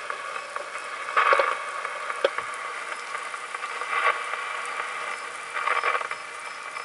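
Steady rain falling in a thunderstorm, an even hiss that swells briefly about a second in, at about four seconds and again near six seconds, with one sharp tick a little past two seconds.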